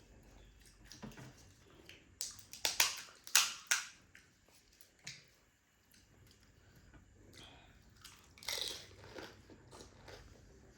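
Close-up mouth sounds of crisp pani puri shells being bitten and chewed: a cluster of loud crunches a couple of seconds in, then softer chewing, and another crunching bite later on.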